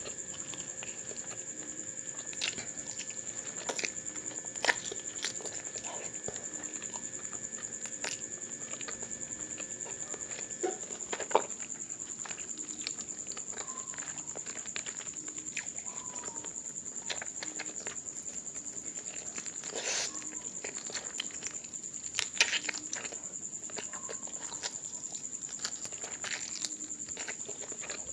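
Close-miked eating by hand: chewing, lip smacks and wet mouth clicks, with scattered sharp clicks, over a steady high-pitched whine. A fainter steady hum stops about ten seconds in.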